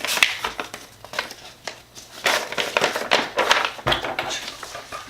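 Paper rustling and crinkling in irregular bursts as letters and envelopes are handled and shuffled, with a soft low bump about four seconds in.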